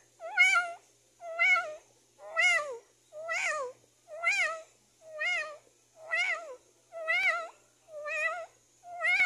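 A kitten meowing over and over, about once a second, each meow a short, high, wavering call.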